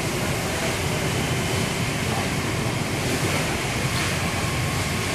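A car fire burning, heard as a steady, loud rushing noise.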